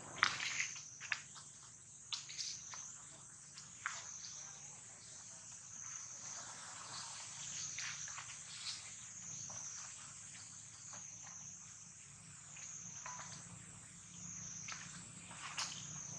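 A steady, high-pitched outdoor insect chorus that slowly swells and fades, with a few faint short clicks and rustles scattered through it.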